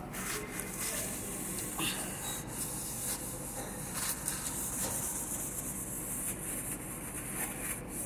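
A kitchen surface being wiped with paper tissue: a rubbing noise with short scuffs over a steady high hiss.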